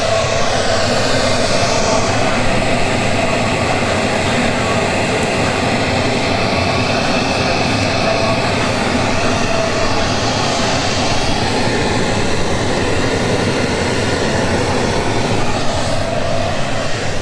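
Steady, loud hiss of test noise played through a car audio system's speakers while the system is measured and tuned for its crossover points and EQ.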